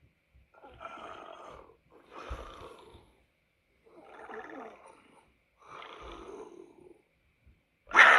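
Cartoon monster vocal sound effects: four separate rough, animal-like calls of about a second each with short pauses between, then a louder, shorter call right at the end.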